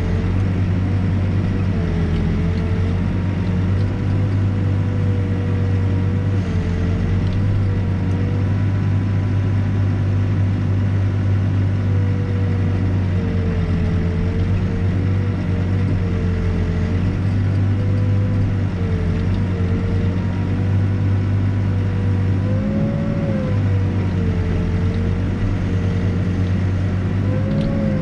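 Backhoe's diesel engine running steadily under work, with a whine that sags in pitch every few seconds as the engine takes load while digging, and swells up twice near the end.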